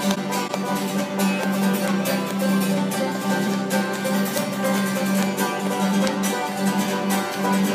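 Acoustic bluegrass band playing an instrumental intro: five-string banjos picking and an acoustic guitar strumming in a steady rhythm over a steady low drone.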